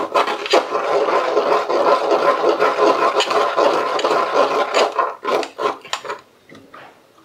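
Silicone spatula stirring and scraping grape purée against a stainless steel mesh strainer, a continuous rasping rub. It breaks into a few separate strokes about five seconds in and stops near the end.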